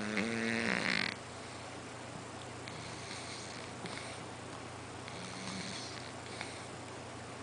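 Sleeping cat snoring: one louder, drawn-out snore in the first second, then softer snoring breaths about every second.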